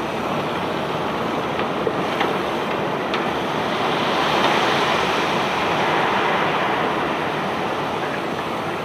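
Cobblestones pouring off a self-unloading barge: a steady rushing, swelling about halfway through, with a few light clicks of stones.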